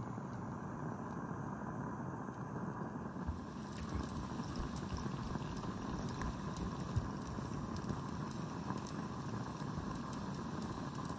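Regner Lumberjack live-steam locomotive running with its train: a steady hiss of steam, with wheels clicking over the rails more often from about three and a half seconds in.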